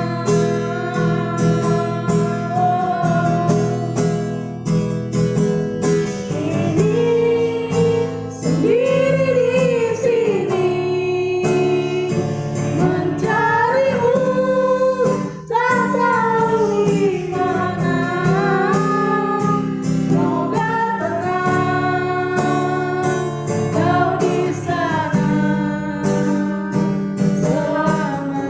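A street busker singing to an acoustic guitar, the voice swooping widely up and down in pitch over steady strummed chords.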